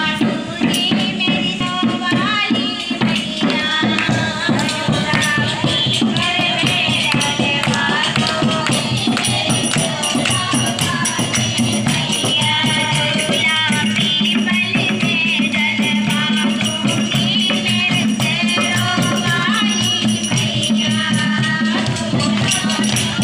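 A group of women singing a folk song together, a lead voice on a microphone, over a steady beat of a dholak hand drum, rattling percussion and hand clapping.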